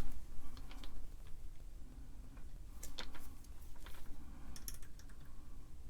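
Scattered small plastic clicks and taps of a multimeter being handled, its dial turned to capacitance and its probes set on a capacitor, over a steady low hum.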